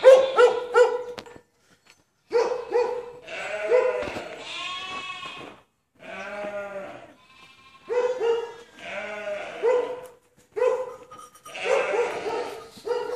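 A large white dog barking in runs of quick barks, starting with about five in a row, with sheep bleating between the runs.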